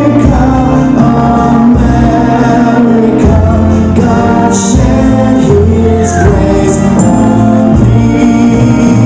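Children singing a song together with instrumental accompaniment, the voices carried over deep bass notes that change about once a second.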